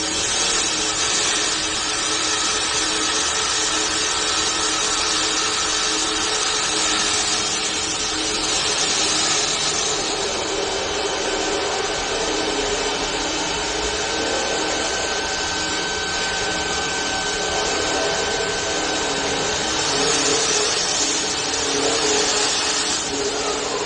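Multi-head CNC wood lathe running and working a wooden workpiece: steady machine noise of motors and cutting or sanding, with a constant hum under a hiss that shifts slightly in tone as it works.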